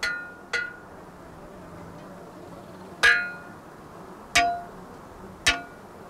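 A metal post being pounded into stony ground, five ringing clanks in all. Two come in quick succession, then after a pause three more follow about a second apart.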